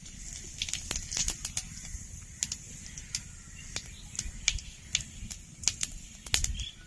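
Whole cumin seeds sputtering in hot oil: irregular sharp pops and crackles over a steady sizzle.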